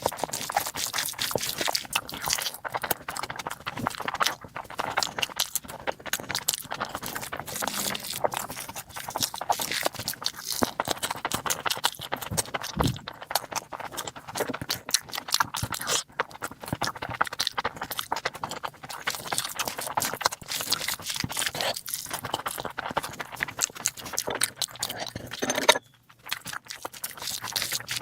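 Close-miked eating of rice and curry: a continuous run of chewing and mouth clicks. There is a brief pause a couple of seconds before the end.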